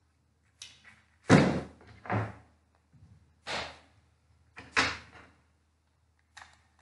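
Evergreen sprigs rustling and bumping as they are handled and pressed onto the arrangement's base, in about six short bursts; the loudest comes about a second and a half in, the faintest near the start and near the end.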